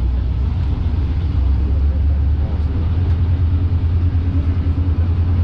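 Diesel railcar running, heard from on board: a steady low engine drone with the rumble of wheels on the track.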